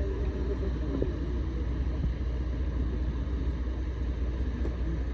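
An engine running steadily at a constant speed, a low, even rumble.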